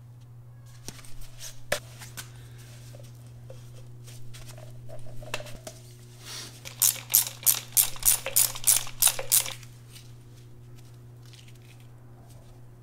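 Hands fitting a plastic dust boot and bump stop onto a rear shock absorber: scattered rustling and handling clicks, then a quick run of about ten sharp clicks, roughly four a second, just past the middle. A steady low hum runs underneath.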